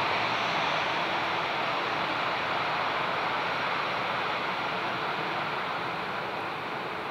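Airliner's jet engines heard as a steady rushing noise that slowly fades as the aircraft moves away.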